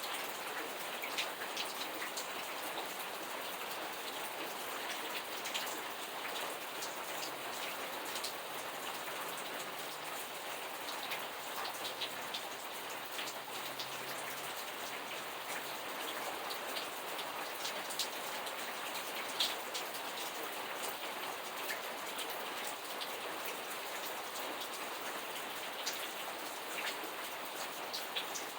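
Steady rain falling: an even hiss with many separate drops ticking sharply against a surface.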